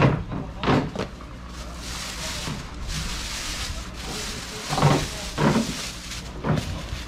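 Footsteps on a paved market lane, with about two walking-pace steps at the start and three near the end. A stretch of rustling, rushing noise fills the middle.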